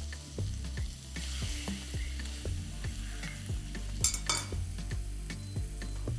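Seasoned chicken breast frying in olive oil and butter in a pan, sizzling steadily, with a louder flare of sizzle about four seconds in. Quiet background music with a steady beat runs underneath.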